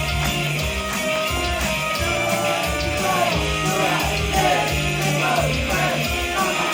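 Rock-style pop song played at an idol mini live: electric guitar over a steady beat, with a singing voice coming in about three seconds in.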